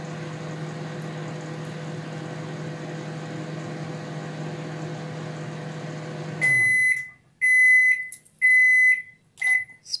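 Samsung microwave oven running with a steady hum that stops about six and a half seconds in as its countdown reaches zero. Four high-pitched beeps follow, the last one shorter, signalling that the heating cycle is done.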